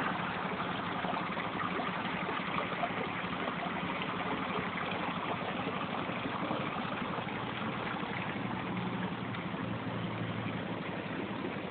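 Steady vehicle engine and road noise with a low, even hum, as on a car journey.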